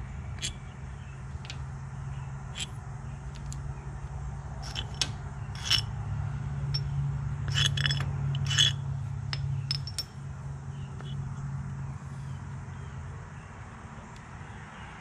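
Steel bolts clinking and scraping as they are drawn out of the tractor's hydraulic lift cover plate and handled, a scattering of sharp clinks that cluster in the middle, over a steady low hum.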